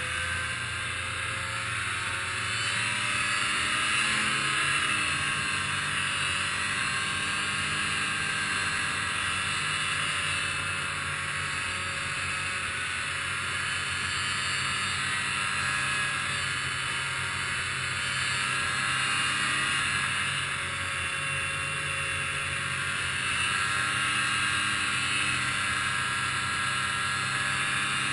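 Snowmobile engine running at a steady trail speed, its pitch rising and falling gently, with the hiss of the machine moving over the snow.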